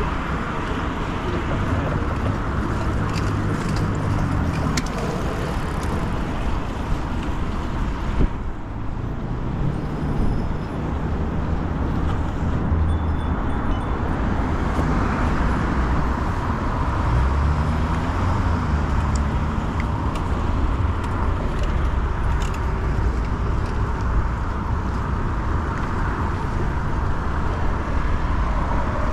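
Steady city road traffic heard from a moving bicycle: cars passing close by, their engine hum rising and falling as they go, over a constant rush of tyre and road noise.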